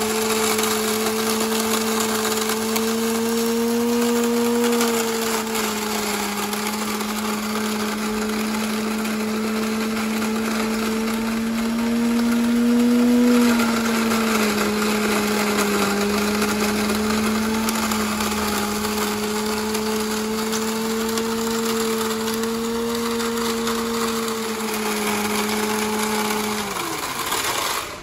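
Electric walnut-peeling machine shelling corn: its motor hums steadily, wavering slightly in pitch, over the rattle and rush of cobs and kernels tumbling in the bucket. Near the end it is switched off and spins down with a falling pitch.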